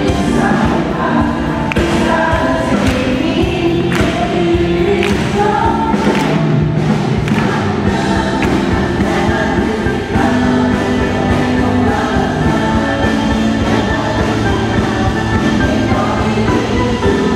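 Upbeat gospel worship music: a group of voices singing together over a band with a steady beat.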